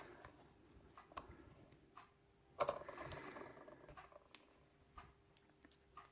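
Lock-picking tools and a brass euro cylinder lock being handled: faint scattered metal clicks, with a louder clatter and brief ringing about two and a half seconds in.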